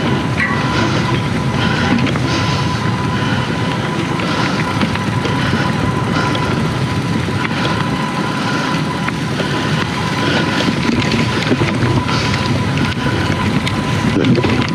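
Steady rushing, rumbling noise with a faint even high whine, typical of wind on the microphone and rolling along a trail.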